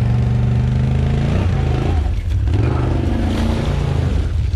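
ATV engine running, its speed rising and falling a couple of times.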